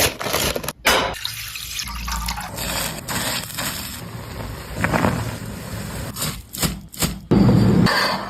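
Water being poured and running, as when filling a pot for cooking noodles, in short edited cuts that stop and start abruptly.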